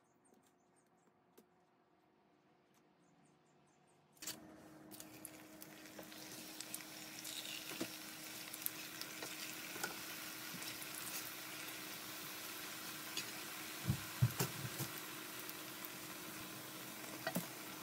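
Strips of almond- and coconut-flour keto fry dough sizzling in hot oil in a frying pan, starting suddenly about four seconds in and growing denser, full of small crackles. A few knocks come near the end as the fries are stirred in the pan.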